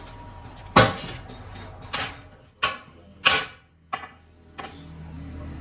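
Six sharp knocks, about one every second and irregularly spaced, over a low steady hum; the knocks fit workpieces or tools being handled in a machine workshop.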